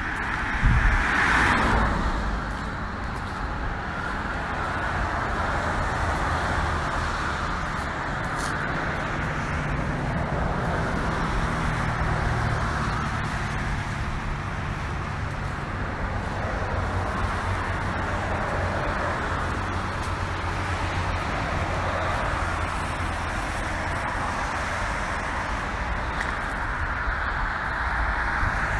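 Steady road traffic noise: a continuous hiss of tyres over a low rumble, louder for a moment about a second in as a vehicle passes.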